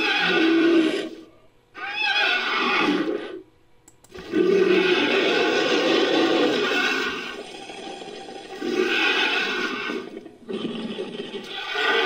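Fan-made dinosaur roar sound effects, edited together from stock Giganotosaurus, Allosaurus and monster roars: a series of about five roars with short gaps between them, the third a long drawn-out roar starting about four seconds in.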